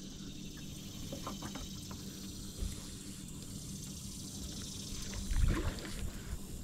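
Quiet handling noise in a kayak while a hooked carp is played on a fly rod: soft clicks as line is handled over a steady low hum, and one louder low thump a little over five seconds in.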